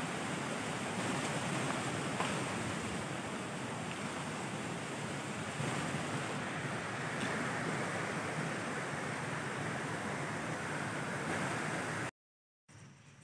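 Steady rushing wind noise with a few faint ticks, cutting off abruptly about twelve seconds in.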